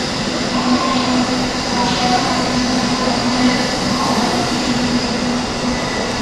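Keikyu 2100-series eight-car electric train passing through a station platform at speed: a steady, loud rolling noise of wheels and running gear, with a steady hum beneath it.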